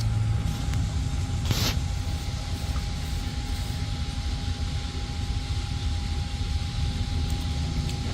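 Steady low motor drone with a faint constant whine, and one short burst of noise about a second and a half in.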